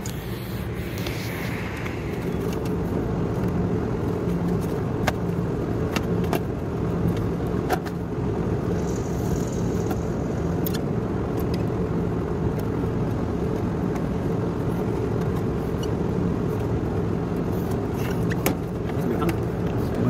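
Steady low mechanical rumble, with scattered small clicks and taps from wires and connectors being handled.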